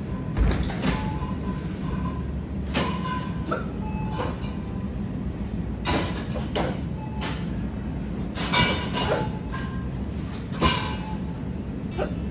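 Metal shopping cart being pushed along, its wheels giving a steady rolling rumble on the hard floor, with irregular clattering rattles from the wire frame and the items in the basket.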